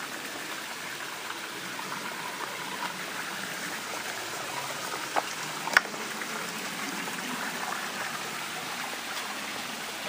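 Steady rushing of a waterfall and its stream, with two short sharp clicks a little past halfway.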